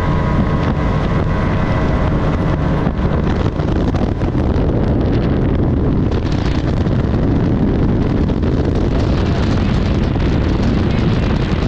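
Bass boat running on the water: outboard engine and hull noise under heavy wind buffeting the microphone, loud and steady.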